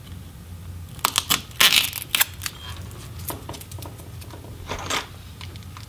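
Adhesive tape being peeled off a laptop battery: a few small clicks, then a short ripping burst around two seconds in, followed by scattered light handling clicks.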